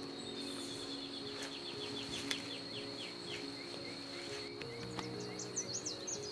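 Soft background music with long held low notes over forest ambience. A steady high insect drone runs throughout. A bird gives a series of about a dozen short downward-slurred notes over the first three or four seconds, and quick high chirps come near the end.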